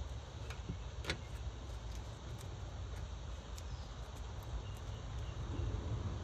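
A few faint clicks from a computer case and its card being handled, the clearest about a second in, over a low steady outdoor rumble.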